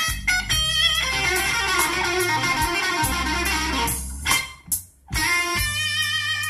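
Guitar-led song playing through a car stereo, a Kenwood KDC-100U head unit driving an Art Nouveau AN4.400 amplifier, heard inside the car's cabin. The music dips almost to nothing for a moment about four and a half seconds in, then carries on.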